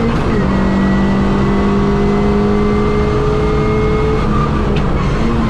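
Suzuki Swift 1.3 GTi rally car's four-cylinder engine heard from inside the cabin, running hard at speed with a steady note. The pitch dips slightly just after the start, holds, then shifts again near the end.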